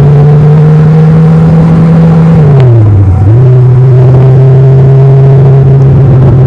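Kawasaki Ninja 1000's stock inline-four engine and exhaust under way, its pitch creeping up slowly, then dipping sharply about two and a half seconds in and settling back to a steady note.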